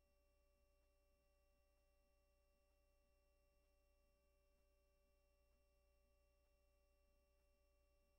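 Near silence: a silent audio track with only faint steady tones underneath.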